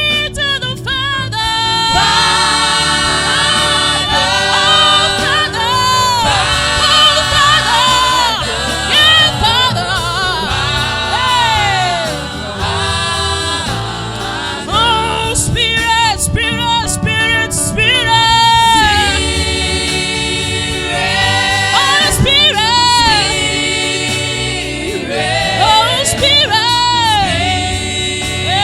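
Gospel worship music: melismatic singing with sliding, wordless vocal runs over a steady instrumental backing.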